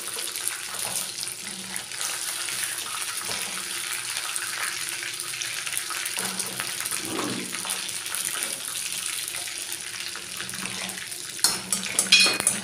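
Chicken pieces sizzling in hot mustard oil in a kadai with a steady crackling fry as they are lifted out with a wire skimmer. Near the end come a few sharp metal clinks and rattles of the skimmer against the pan.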